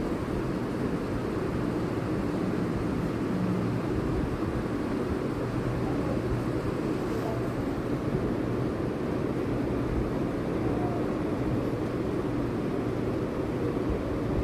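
A steady, low droning rumble with no breaks, of the kind a running engine or machine makes.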